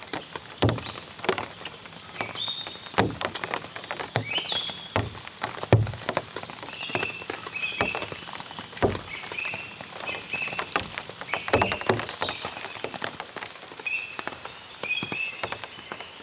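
Heavy raindrops falling at irregular intervals, each a sharp tap, with short high chirping calls repeated throughout.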